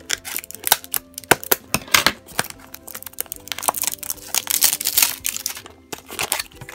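Plastic blind-box cup being opened by hand: scissors cut through its paper seal sticker, then fingers peel the sticker and work the plastic lid, giving a dense run of sharp clicks, crackles and scrapes. Soft background music plays underneath.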